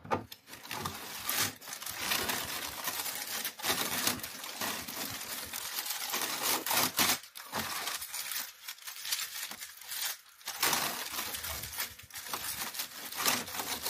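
Scotch Cushion Lock die-cut kraft paper wrap being pulled out of a 3D-printed plastic dispenser, crinkling and rustling with many small crackles as the paper opens into its mesh, with a couple of brief pauses.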